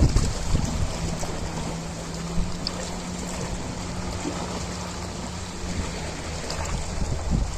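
Ocean waves washing and churning in a steady rush of water noise, with low rumbling thumps near the start and end. A faint low steady hum runs through the middle for about five seconds.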